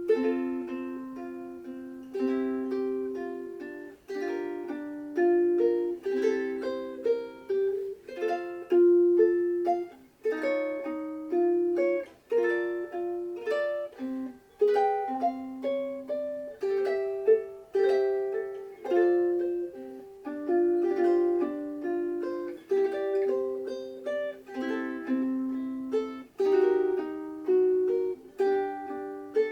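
Solo mini tenor ukulele, a Seilen SLMT-1380 with Madagascar rosewood top, sides and back, being played: plucked melody and chords, the notes ringing and decaying, starting suddenly at the outset.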